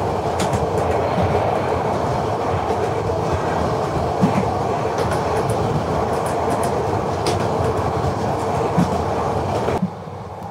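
Express passenger train running at speed: a steady rumble of wheels on rail with scattered clicks. The level drops abruptly near the end.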